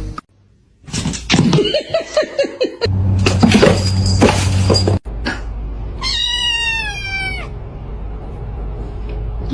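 A cat's long meow about six seconds in, pitched and falling slightly at the end, over a steady low hum. Before it come a few seconds of louder, rapidly pulsing sounds.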